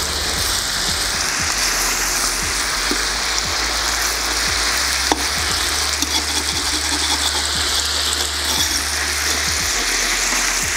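Pieces of duck sizzling steadily in hot oil in a kazan, with a metal spoon and skimmer scraping and clicking against the pot as they are turned. One sharper click comes about five seconds in.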